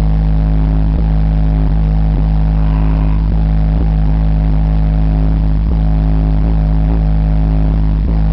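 Car audio Audiobahn 12-inch subwoofers, driven by an Acoustik BAMF 4000-watt amplifier, playing a very loud, deep bass note held steady throughout.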